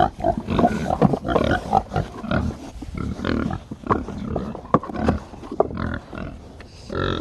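Several feeder pigs grunting and snorting in short, irregular bursts, with a few sharp knocks among them. They are hungry and expecting feed.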